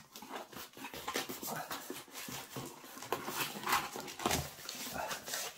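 Corrugated cardboard box flaps being pulled open and worked by hand: a run of rustles, scrapes and light scuffs.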